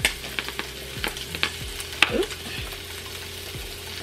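Cream sauce simmering in a pot with occasional low plops, under irregular sharp clicks and taps from a seasoning shaker being shaken over it. The loudest click comes about two seconds in.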